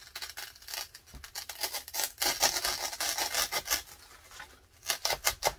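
A blade sawing back and forth through a floral foam log, a quick run of short scraping strokes that thins to a few separate strokes near the end.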